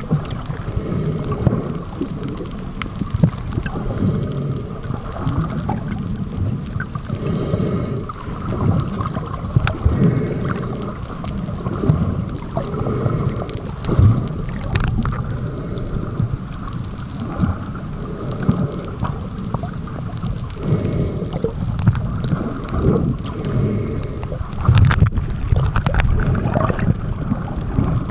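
Muffled underwater water noise, sloshing and gurgling as heard through an underwater camera's housing, with a few sharp knocks.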